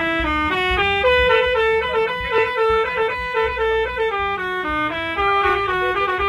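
A bus's multi-tone 'telolet' musical horn playing a quick tune, one reedy note after another at about three to four notes a second.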